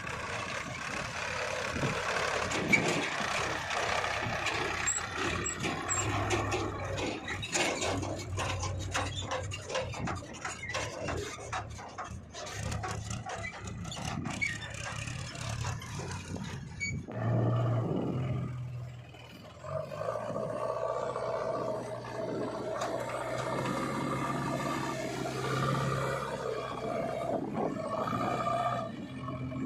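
Diesel engines of a backhoe loader and tractors running under load, with many irregular knocks and scrapes for the first half. About two thirds of the way in the sound changes to a steadier engine drone.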